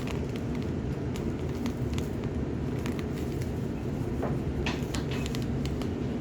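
Scattered small clicks and squishes of hands working slime, over a steady low background hum.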